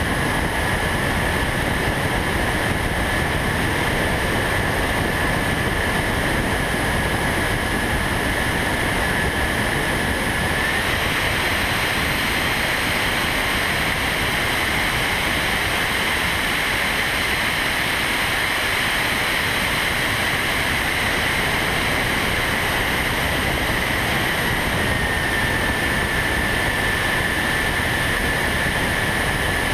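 RC model airplane's motor and propeller running with a steady high whine under heavy wind rush, heard from a camera riding on the plane. The whine steps up a little in pitch about eleven seconds in and drops back a few seconds before the end, as the throttle changes.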